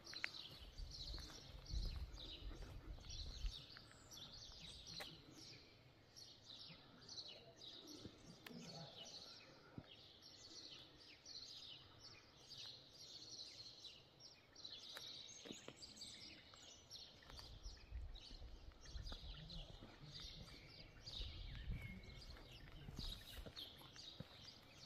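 Small songbirds chirping and singing in many short, quick notes throughout, over faint outdoor ambience, with a low rumble rising early on and again in the second half.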